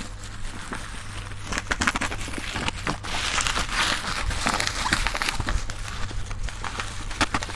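Bubble-wrap packing being torn and pulled off a cardboard box: irregular crinkling and crackling rustles, getting busier about a second and a half in.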